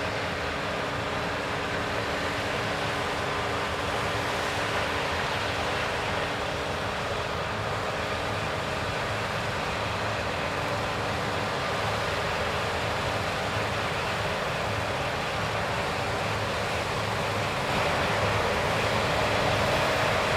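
CLAAS Lexion 7500 combine harvester running steadily while harvesting wheat: a continuous mechanical drone with a steady hum, getting louder near the end.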